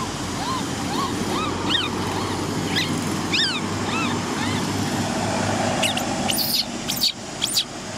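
Baby macaque crying: a run of short whimpering coos, each rising then falling in pitch, a couple a second, then a few sharper, higher squeals near the end, over steady low background noise.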